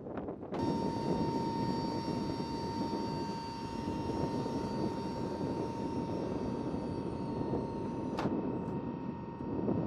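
Lockheed C-130H turboprop transport running on the ground: a steady high whine over a broad rumble, starting abruptly about half a second in. A single sharp click cuts across it about eight seconds in.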